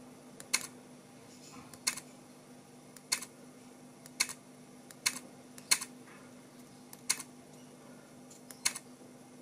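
Small tactile push-buttons on a Maix II Dock board clicking as they are pressed to step through its menu, about eight sharp clicks at uneven intervals.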